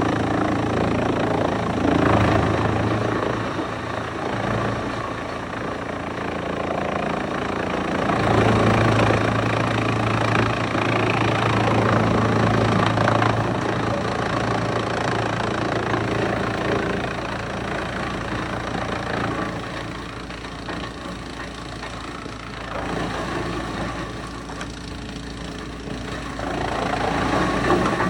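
Wood chipper running: a steady engine hum under a broad rush of mechanical noise that grows louder and softer over several seconds at a time.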